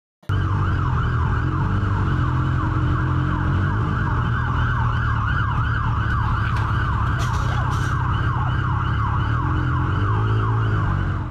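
Fire engine siren sounding a fast yelp, loud and close by: a rising sweep repeated about three or four times a second, over a steady low engine rumble. It stops abruptly near the end.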